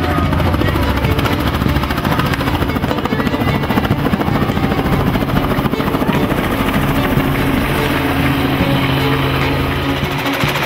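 Helicopter running, its rotor beating in a fast, steady chop over a continuous engine hum.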